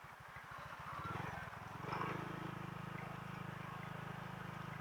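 Motor scooter engine running at low speed: a low pulsing beat that smooths into a steadier, slightly louder hum about two seconds in.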